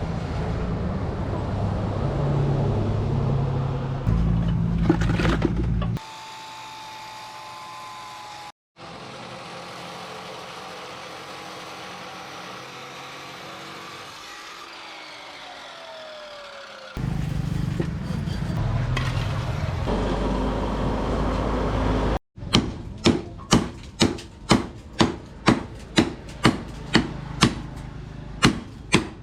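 Forge-workshop sounds in several abruptly changing stretches, ending in a steady series of hammer blows on steel rebar, about two a second, over the last seven seconds.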